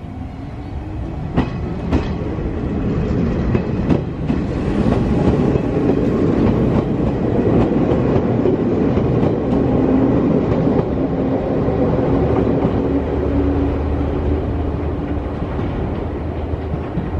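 Izuhakone Railway 5000-series electric train pulling out and running close past, getting louder over the first few seconds. Its wheels clack sharply over rail joints and a low steady hum runs under the rumble.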